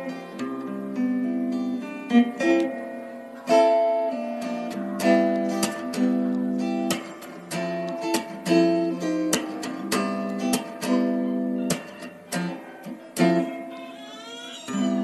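Background music played on acoustic guitar, a run of plucked notes and strummed chords.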